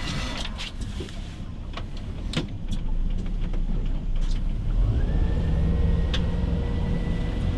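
Fishing boat's engine running, then speeding up about five seconds in as the throttle is pushed forward: the rumble grows louder and a whine rises and settles into a steady pitch as the boat gets under way.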